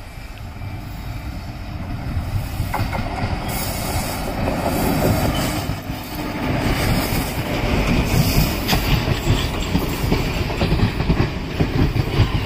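WAP-4 electric locomotive hauling a train of ICF passenger coaches, approaching and passing close, growing louder over the first several seconds. Once the coaches are going by, the wheels clatter over the rail joints in a steady clickety-clack rhythm.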